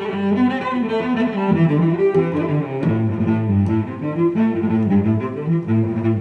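Intro music: several sustained notes at once, with the lower notes changing every half second or so.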